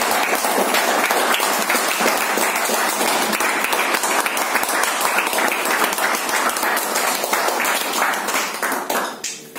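A group of people applauding with many hands clapping, fading away near the end.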